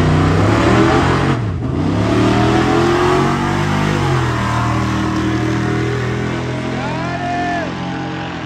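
Drag race car engines at full throttle accelerating down the strip, rising in pitch with a sharp drop about a second and a half in like a gear shift, then running flat out and slowly fading as the cars draw away.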